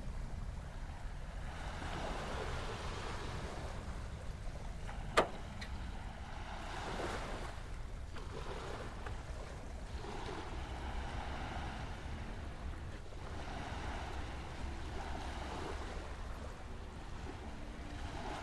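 Ocean surf washing ashore in slow swells, with a low wind rumble on the microphone. A single sharp click comes about five seconds in.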